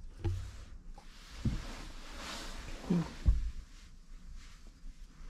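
Rustling and a few soft low thumps as a hand strokes a cat's head and fur, with the loudest thump a little over three seconds in.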